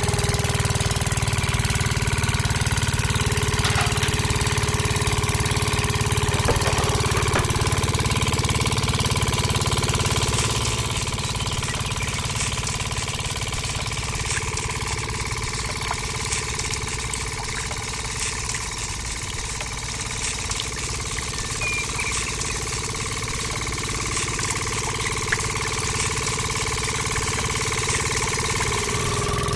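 Small motor in a miniature model diesel engine running steadily, driving a belt to a toy sugarcane roller press, with a few faint clicks; the hum drops slightly about ten seconds in.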